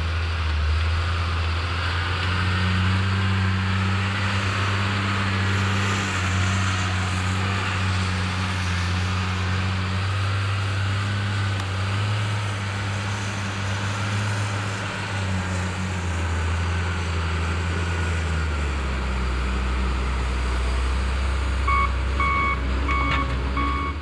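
John Deere wheel loader's diesel engine running steadily under work, its pitch shifting a few times as the machine works. Its backup alarm beeps repeatedly near the end as it reverses.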